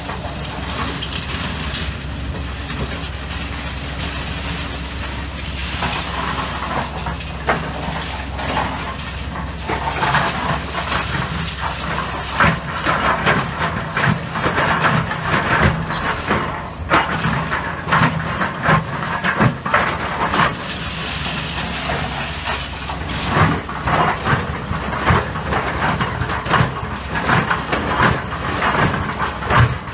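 Excavator's diesel engine running steadily under a clatter of knocks and scrapes as its bucket works through concrete rubble and reinforcing steel, the knocking growing thicker about ten seconds in.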